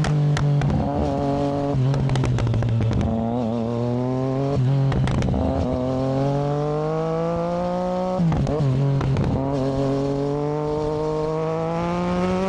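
Triumph Daytona 675R's inline three-cylinder engine under way, its pitch climbing steadily as it accelerates and dropping sharply twice, about 5 and 8 seconds in, at upshifts before climbing again. Short sharp crackles sound around the shifts.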